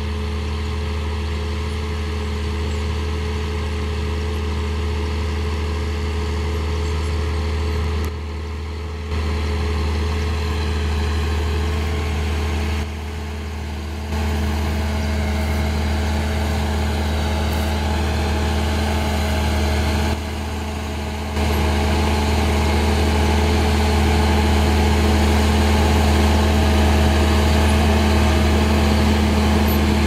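A John Deere tractor's diesel engine running steadily under load as it pulls a row-crop planter, dipping briefly in level three times and growing louder near the end.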